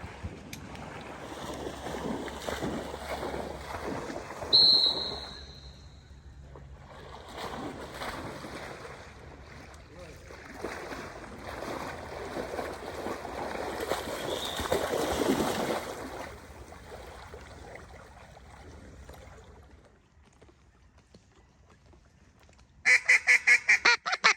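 A duck call blown in a fast run of about a dozen loud, evenly spaced quacks near the end. Before that there is a noisy rustling with a faint low hum and a brief high whistle.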